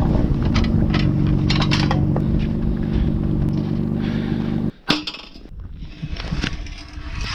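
A vehicle engine idling steadily with small clinks and knocks of loose gear. It cuts off abruptly about two-thirds of the way through with a sharp knock, leaving fainter rustling and clicks.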